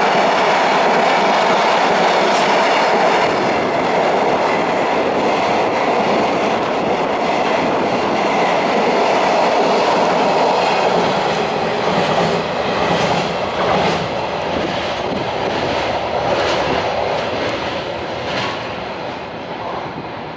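Freight flat wagons loaded with long rails rolling past at speed: a loud steady rumble of steel wheels on the track with the clickety-clack of wheels over rail joints, slowly fading over the last several seconds as the train draws away.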